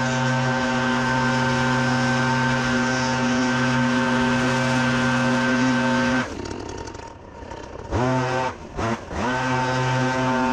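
Leaf vacuum's engine running steadily at high speed. About six seconds in it is throttled down for a moment, then revved back up in a few quick surges and settles back to a steady run.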